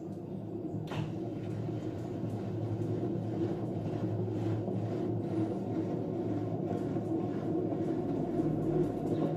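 Samsung washer-dryer drum in its spin cycle, with an abnormal steady low rumble that slowly grows louder. The noise marks the machine as needing a mechanical overhaul.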